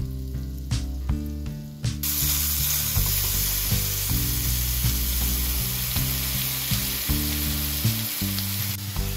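Sliced button mushrooms frying in butter in a nonstick pan: a steady sizzle that starts suddenly about two seconds in, over soft background music.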